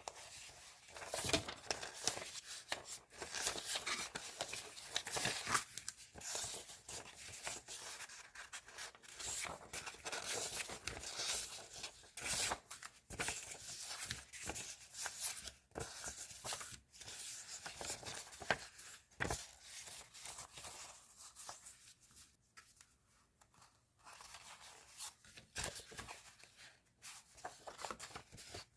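Paper and packaging from a stationery haul being handled close up: irregular rustling, crinkling and tearing with a few sharper clicks and taps. There is a quieter lull about three quarters of the way through.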